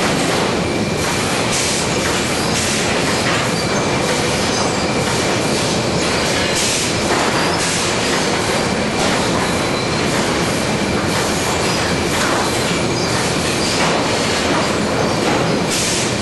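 Sawmill chain conveyor running, its chains and the boards riding on it clattering in a steady, loud mechanical din. A faint steady whine runs under it, and sharper noisy surges come every few seconds.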